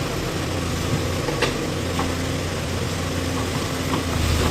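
Backhoe loader's diesel engine idling steadily, with a couple of light clicks about a second and a half in.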